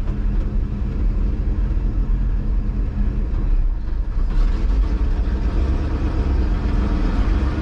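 1971 Chevrolet C50 truck engine running as the truck pulls away in a low gear, heard from inside the cab. The sound dips briefly about four seconds in, then comes back fuller and louder.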